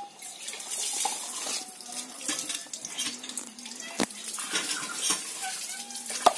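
Bamboo slats being handled and scraped on a wooden board, with a single knock about four seconds in. Just before the end, a sharp knock as a knife blade strikes the bamboo.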